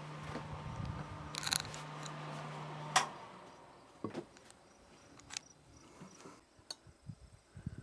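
Small clicks and clatter of handling things over a steady appliance hum; the hum cuts off with a sharp click about three seconds in, leaving only scattered light clicks.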